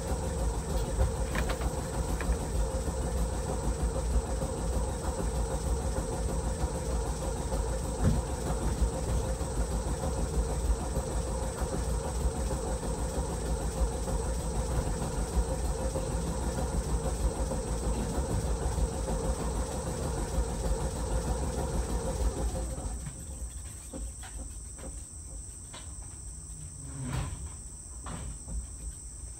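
A streetcar's air compressor runs with a steady hum, then cuts out about three quarters of the way through. Insects chirp steadily throughout, and a few faint knocks follow once the compressor stops.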